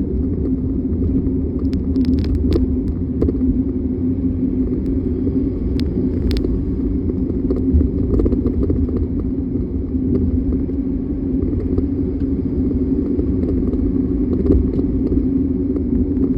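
Mercedes-Benz Sprinter 4x4 van on the move, a steady low rumble broken by short sharp rattles: a cluster about two to three seconds in, two more about six seconds in, and a few near the end. The rattles are a rattling noise from the driver-side front suspension.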